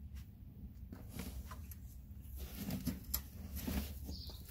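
A few light clicks and rustles over a low steady hum, as a newly fitted spring-loaded motorcycle floorboard is stepped on, released and folds up, with the sharpest click about three seconds in.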